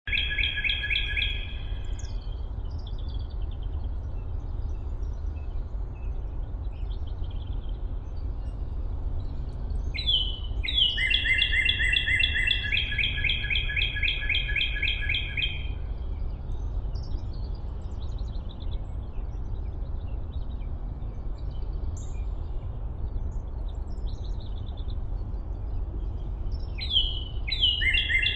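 Woodland songbirds singing: a loud, fast trill of rapidly repeated notes comes at the start, again for about five seconds in the middle, and once more near the end, with fainter chirps from other birds in between, over a steady low rumble.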